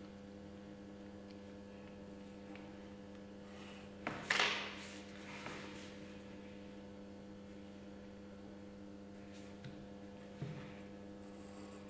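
Steady electrical mains hum in a quiet room. About four seconds in there is a brief, louder scrape, and near the end a soft tap, both from pencil-and-paper drawing at the table.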